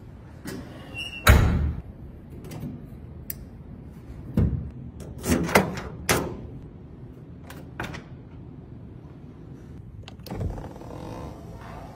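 Car doors and trunk lid being shut and latched: a heavy thud about a second in, then several lighter clunks and small clicks, with another clunk near the end.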